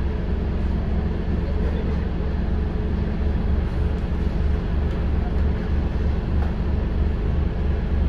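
Scania N230UD double-decker bus heard from on board as it drives: a steady low engine rumble with road noise.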